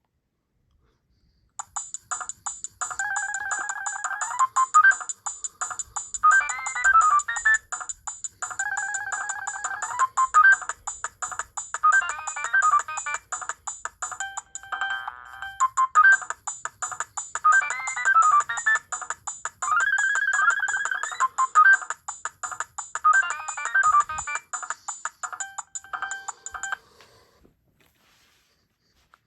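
Nokia 6010 mobile phone playing one of its ringtone melodies. It starts about a second and a half in, breaks briefly about halfway, and stops a couple of seconds before the end.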